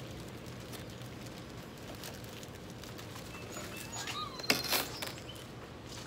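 Plastic wrapping and cardboard rustling as a plastic-bagged grass catcher frame is pulled out of a lawn mower's shipping box, with a loud crinkling burst about four and a half seconds in and a few short high chirps just before it, over a steady low hum.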